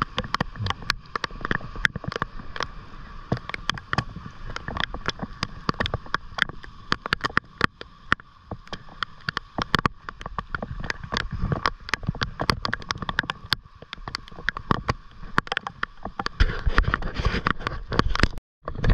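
Rain in a squall at sea: dense, irregular clicks of raindrops striking the water and nearby surfaces, over sloshing water. It gets louder with heavier splashing near the end.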